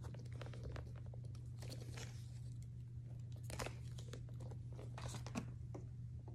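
Handling noise from a quilted handbag being lifted and turned: irregular rustles and crinkles with small clicks, the loudest about two, three and a half and five seconds in. A steady low hum runs underneath.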